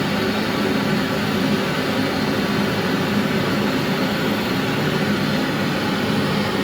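A steady, unchanging roar of noise with no breaks, heaviest in the low-middle range.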